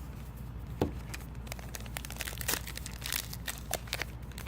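Trading card pack wrappers and cards being handled: scattered light crinkling and crackling.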